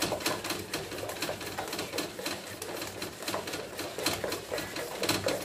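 Silicone spatula beating eggs and sugar by hand in a stainless steel bowl: quick, rhythmic strokes against the metal through the runny mixture. The mixture is being beaten until it turns pale.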